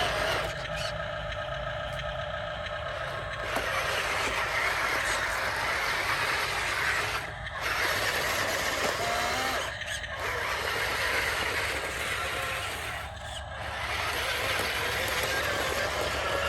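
Radio-controlled model construction machines running: a steady mechanical whirr of small motors and gearing, broken by short pauses about 7, 10 and 13 seconds in.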